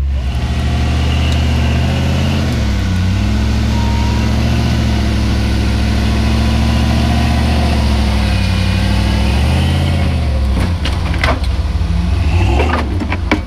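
Rock-crawling buggy's engine running steadily at low revs, its pitch dipping briefly twice. About ten seconds in, a run of sharp knocks breaks in over the engine.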